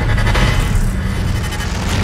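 Cinematic intro music with a deep bass rumble and swelling noise, hit by a heavy boom at the very end.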